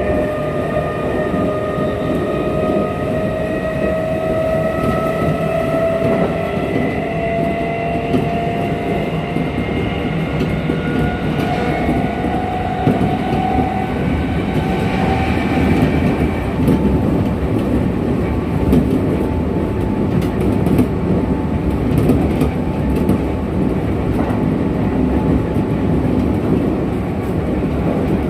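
Running sound inside a Kintetsu 1233-series electric train, a unit singled out for an abnormal running noise. A layered motor whine slowly rises in pitch and fades out about halfway through, leaving the steady rumble and clatter of the wheels on the rails.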